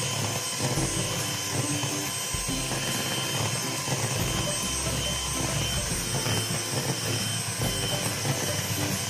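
Electric hand mixer running steadily, its beaters whirring through melted margarine and sugar as they are beaten together until foamy.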